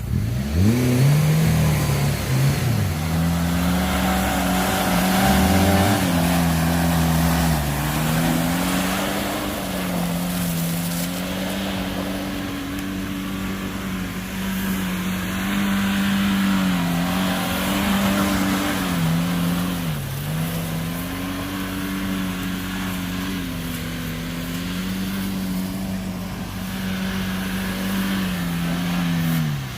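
Off-road 4x4 engine running under load, its revs holding fairly steady with repeated small rises and dips, including a short drop about two-thirds of the way through.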